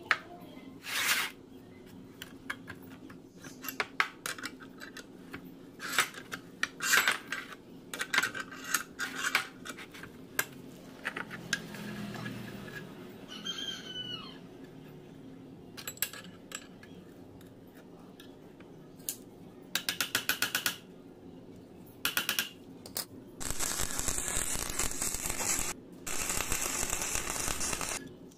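Steel parts of a homemade bench vise clinking and tapping as welded flat-bar jaw plates are handled and fitted onto the vise jaw. Near the end come two longer grating rattles of metal on metal, a couple of seconds each.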